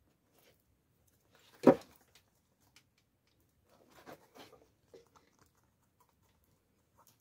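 Hands handling a rubber shoe sole and a shoe while fitting the sole onto the heel. There is one sharp knock a little under two seconds in, then a few softer rustles and taps around four to five seconds in.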